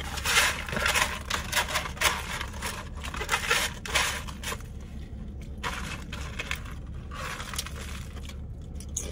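Crunching and crinkling in a run of short bursts for the first four or five seconds, then fainter scattered clicks: food or its packaging, such as a chip bag, being handled.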